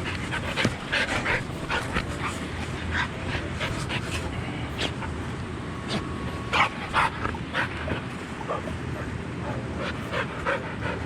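Australian Shepherd dog whining and yipping in a string of short, high cries, restless at being made to wait.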